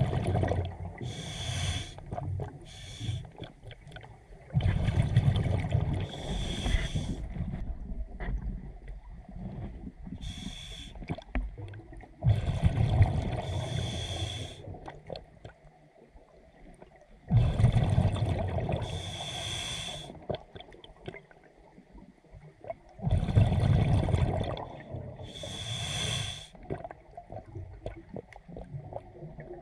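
Scuba diver breathing through a regulator underwater: a slow, regular cycle of the regulator's hiss on each inhale and the low rush of exhaled bubbles, about five breaths, each some 5 to 6 seconds apart.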